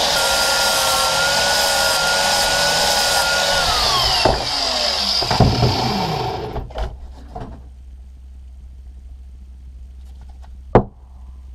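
Hand-held power grinder running steadily at speed against a small metal part, then switched off and winding down, its pitch falling, with a few clunks as it is set down. Near the end comes one sharp knock on the workbench.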